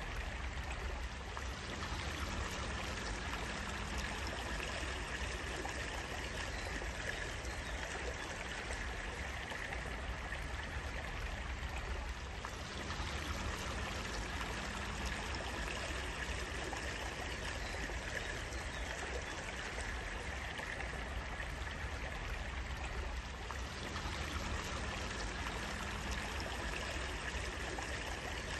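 Flowing water trickling steadily and evenly.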